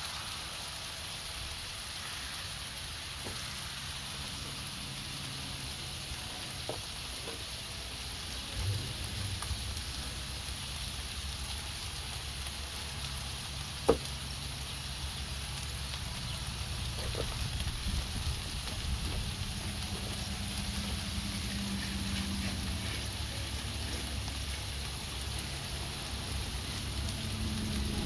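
A meatloaf burger patty and hot dogs sizzling steadily as they fry, with a single sharp click about halfway through. A low rumble underneath grows louder in the second half.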